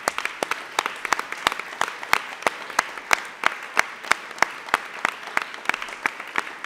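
Audience applause, with sharp single claps standing out above the crowd's clapping at about three a second.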